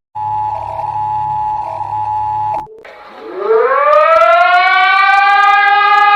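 Emergency alert attention signal: two steady tones sounding together for about two and a half seconds, cut off abruptly. After a short break a civil-defense-style siren winds up, rising in pitch and settling into a steady wail.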